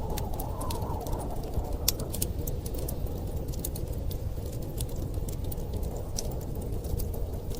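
Wood fire crackling, with frequent sharp irregular pops, over a steady low rumble of blizzard wind.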